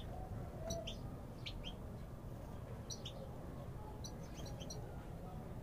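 European goldfinches giving short, high chirps, scattered singly and in quick pairs, over a steady low background noise.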